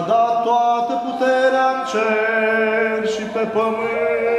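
A man's voice in Orthodox liturgical chant, singing the text in long, held notes, with a change of pitch about two seconds in.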